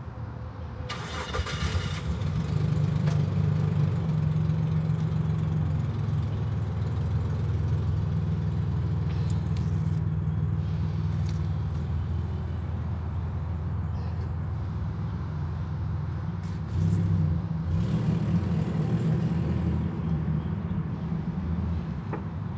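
A car engine is cranked by its starter and catches about a second in, then runs steadily. Engine noise rises briefly near the end.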